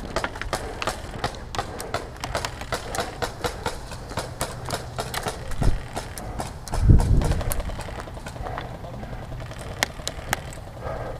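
Footsteps moving quickly, an irregular patter of several steps a second, with two low thumps, the louder about seven seconds in.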